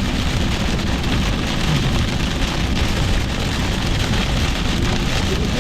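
Heavy rain drumming steadily on a moving car, heard from inside the cabin, mixed with the car's tyre and road noise.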